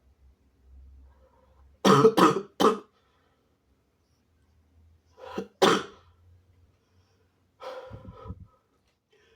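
A person with a cold coughing: three quick loud coughs about two seconds in, two more a few seconds later, then softer, throatier coughs near the end.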